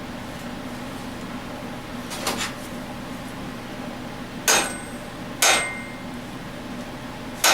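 Hammer blows on metal: a light knock about two seconds in, then three sharp ringing strikes about a second apart, tapping to knock a stuck part loose from the shaft of a Tecumseh small engine in place of a gear puller.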